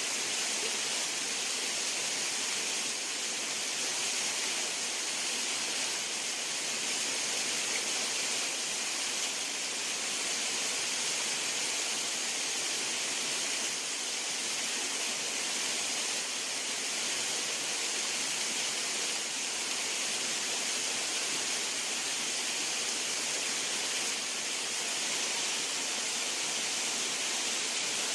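Steady rushing water, an even hiss with no breaks.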